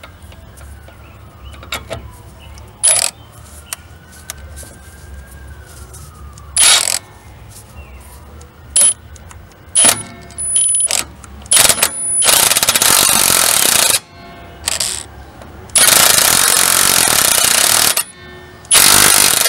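Impact wrench hammering on an oversized lug nut, pulling a new wheel stud into the rear hub flange: several short bursts, then three longer runs of one to two seconds near the end.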